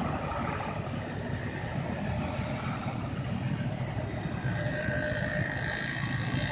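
Mixed road traffic at a bend: small motorcycle engines and car engines running as they pass, over a steady low engine rumble. From about four seconds in, a steadier, higher-pitched whine joins and grows louder.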